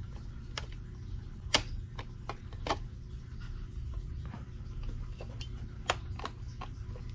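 Irregular small clicks and taps, a dozen or so, as a meter's circuit board and rotary switches are handled and pressed into a plastic case. The sharpest click comes about a second and a half in, and a steady low hum runs underneath.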